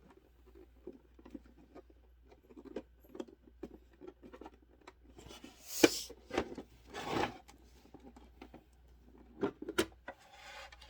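Handling noise from the plastic parts of a SodaStream Fizzi soda maker: light ticks and rubbing, with a sharp click about six seconds in followed by a brief scraping rub, and a few more clicks near the end.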